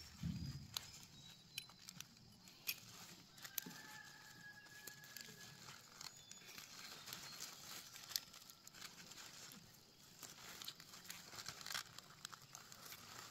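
Crisp leaf lettuce rustling and snapping as leaves are picked off by hand, with scattered sharp snaps and a dull thump at the very start.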